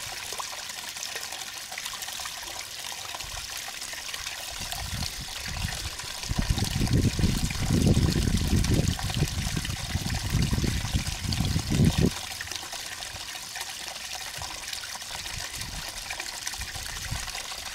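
Steady trickle of running water. A low rumble swells in about six seconds in and lasts about six seconds.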